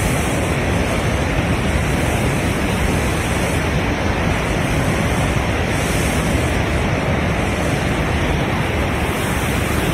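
A river in flood, its muddy torrent churning and rushing in large standing waves: a loud, steady rush of water. The flood is surplus water being released from a full dam upstream.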